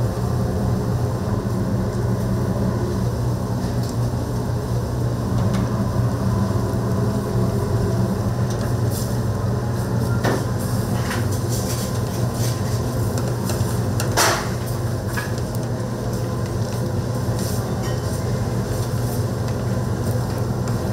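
Steady low machine hum with scattered clinks and knocks, and one louder knock about fourteen seconds in.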